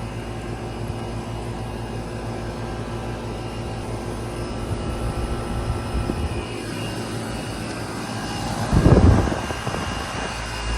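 Outdoor unit of a Trane XV18 variable-speed (inverter) central air conditioner running, with a steady hum from the compressor and condenser fan. A brief, loud low rumble comes about nine seconds in.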